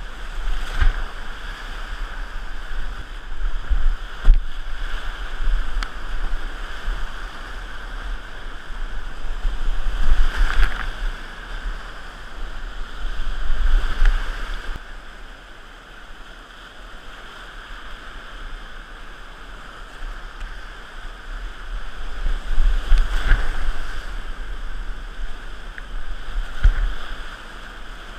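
Whitewater rapids rushing loudly around a kayak running through them, surging louder several times as the boat drops through the waves, with low buffeting thumps throughout.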